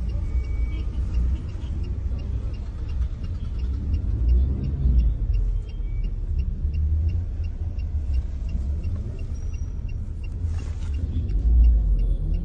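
Steady low rumble of a car, heard from inside the cabin, swelling briefly about a third of the way in and again near the end.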